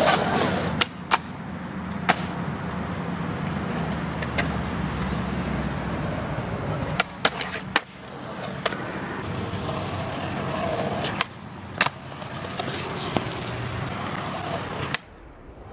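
Skateboard wheels rolling steadily on smooth concrete, broken by a dozen or so sharp clacks of the board popping and landing. The rolling cuts off suddenly near the end.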